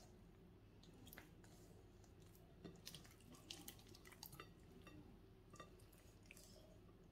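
Faint, wet squelching and soft clicks of raw chicken being turned over and cut with a kitchen knife on a plate, over a low steady room hum.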